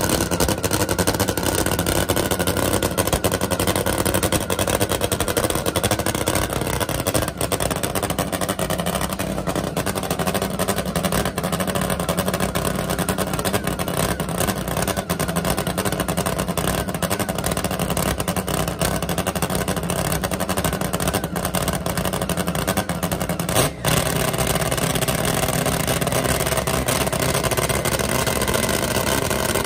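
Top Fuel nitro-burning drag motorcycle engine running steadily at idle on the starting line. It is loud and even, with one brief break about 24 seconds in.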